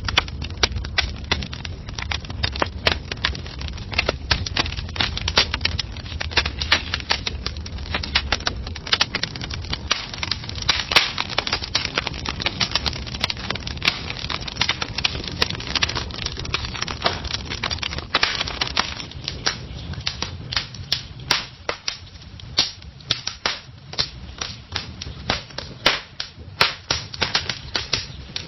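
Fire crackling: a dense, irregular run of sharp snaps and pops over a low rumble. About eighteen seconds in, the rumble drops away and the pops become sparser and louder.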